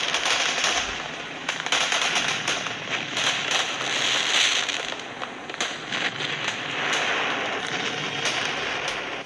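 Recorded fireworks playing from a phone held up to a lectern microphone: a dense, continuous crackling and popping of firecrackers that swells and eases without a break.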